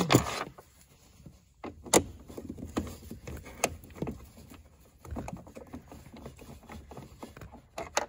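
Sharp clicks and light rattles of a socket on a hand-turned flexible drive knocking against the plastic dash speaker panel as it is set on and turned on the speaker's mounting bolts. There are scattered single clicks, then a run of small ticks near the end.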